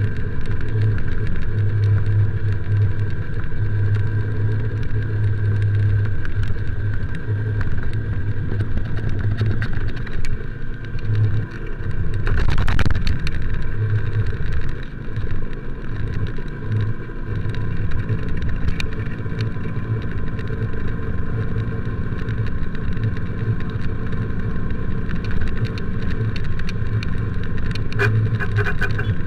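Motorcycle engine running steadily while riding in road traffic, with a louder burst of noise about twelve seconds in.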